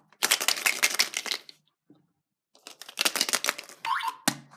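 Foil wrapper of a chocolate surprise egg crinkling as it is pulled open by hand, in two runs of dense crackling about a second long each, with a short pause between.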